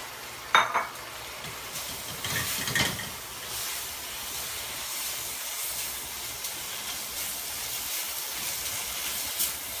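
Beef and vegetables sizzling in a hot wok as they are stirred with a spatula: a steady hiss that swells a little after the first couple of seconds, with a brief louder burst about half a second in.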